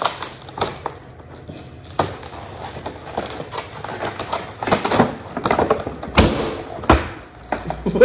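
Rigid clear plastic packaging clicking and crackling as it is handled and pried open, with irregular sharp snaps that are loudest in the second half.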